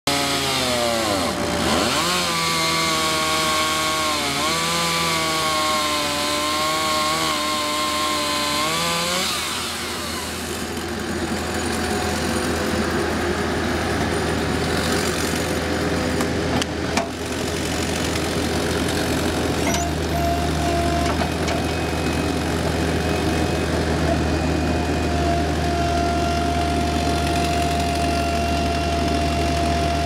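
A gasoline chainsaw cuts through an oak log, its engine pitch dipping under load twice before it stops about nine seconds in. A Bobcat 335 mini excavator's engine then runs steadily while its bucket handles the logs, with a sharp knock about seventeen seconds in and a steady high whine from about twenty seconds.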